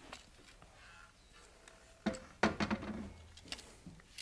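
Handling sounds of a long metal level being repositioned across the top of a log: a few knocks and scrapes about two seconds in, then a few small clicks.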